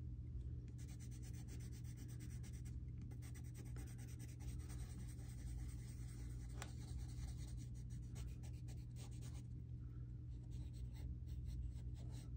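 Koh-i-Noor Hardtmuth Tri-Tone coloured pencil scratching across paper in rapid back-and-forth scribbling strokes, with a faint steady low hum underneath.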